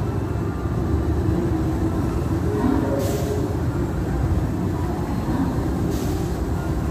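Hogwarts Express train pulling out of the station, giving a steady low rumble as it moves away. Two short hisses come about three and six seconds in.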